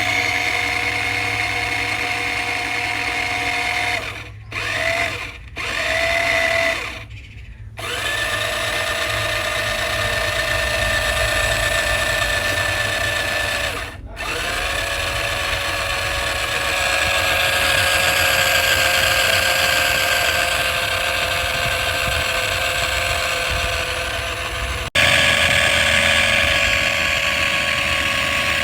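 Electric motor whine of radio-controlled construction models: a steady high whine that cuts out and restarts several times, briefly around four to six seconds in, longer around seven seconds and again near fourteen seconds. It changes abruptly near the end.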